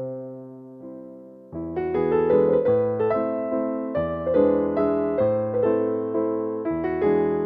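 Background piano music: a soft held chord fading away, then a gentle run of notes picking up about a second and a half in.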